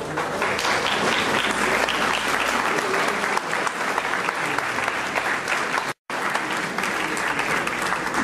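Audience applauding, a dense patter of many hands clapping that swells up in the first second and then holds steady, with a split-second dropout about six seconds in.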